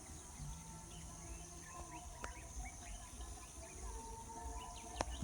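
Small birds chirping faintly and intermittently, growing busier near the end, over a steady high-pitched hiss. A sharp click comes about five seconds in.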